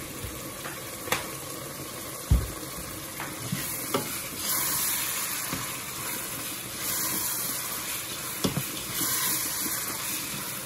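Ground meat sizzling as it browns in a nonstick pot, stirred with a spoon, with a few sharp knocks of the spoon against the pot. The sizzle swells in waves as the meat is turned over, from about four seconds in.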